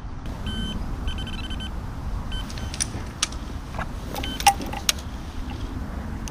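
Electronic bite alarm on a fishing rod rest sounding short runs of rapid beeps in the first two seconds, the sign of a fish taking the bait, then several sharp clicks, over a steady low rumble.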